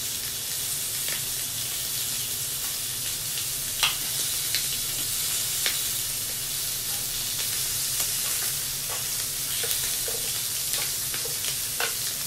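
Slices of meat sizzling on an electric tabletop yakiniku grill, a steady hiss, with occasional light clicks of tongs on the grill plate; the sharpest click comes about four seconds in.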